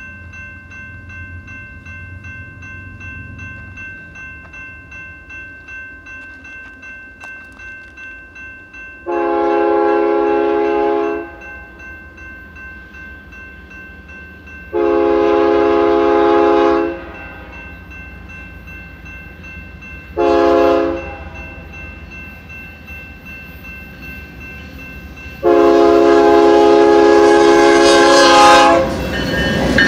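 BNSF freight locomotive horn sounding the grade-crossing signal as the train approaches: long, long, short, long, each blast a loud multi-note chord. Under it a crossing bell rings steadily, and at the very end the noise of the locomotives reaching the crossing swells.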